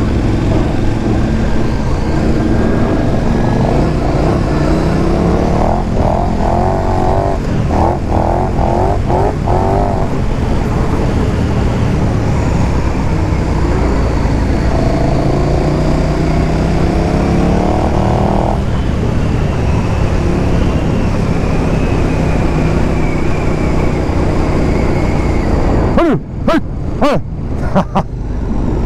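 KTM 1290's V-twin engine running under way, under heavy wind rush on the microphone. The engine note climbs steadily for several seconds and then breaks off sharply, as at a gear change. Near the end the sound cuts out briefly several times.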